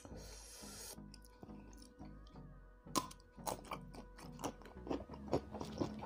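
Crisp chewing and crunching of a raw cactus pad (kaktus centong), with a quick run of crunches from about three seconds in.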